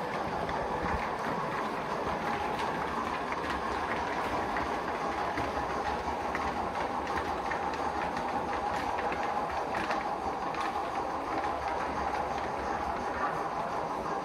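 Gauge 1 model train running on the track: a steady rolling whir with faint clicks of the wheels over the rails.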